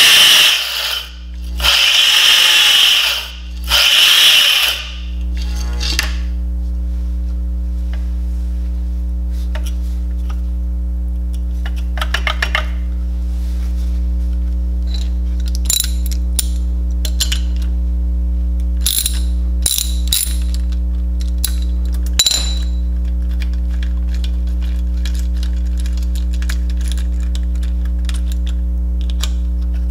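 Motor-driven train of 3D-printed plastic gears spinning at high speed with a loud whirring noise, which drops out twice and stops about five seconds in. A steady low electrical hum then carries on, with scattered clicks and taps as the gears are handled.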